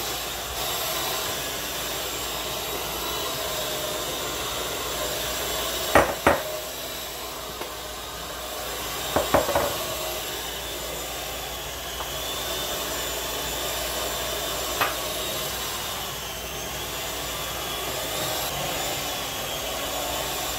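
Electric hand mixer running steadily, its beaters churning through thick peanut butter waffle batter in a bowl, with a faint high motor whine. There are a few sharp knocks: two about six seconds in, a quick cluster near nine and a half seconds, and one near fifteen seconds.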